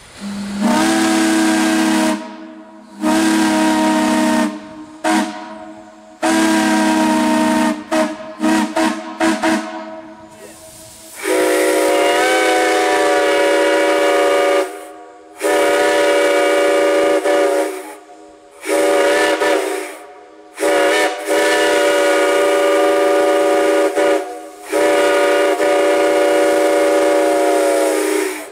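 Steam whistles blown in a series of blasts. For the first ten seconds or so a deep-toned whistle sounds in short and long toots with brief gaps, ending in a run of quick toots. Then a higher, multi-note chime whistle gives five long blasts of two to four seconds each.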